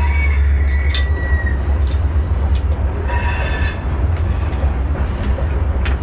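A few sharp metal strikes and clear ringing tones as a steel rebar handle is worked on an anvil, over a steady low rumble.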